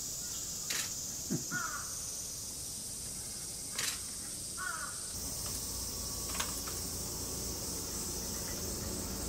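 Two short crow caws, about a second and a half and about four and a half seconds in, over a steady high-pitched insect drone, with a few sharp clicks.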